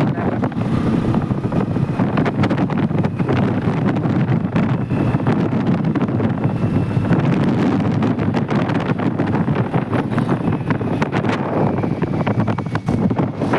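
Heavy wind buffeting the microphone on a moving Hero Splendor motorcycle, with the bike's running and road noise underneath.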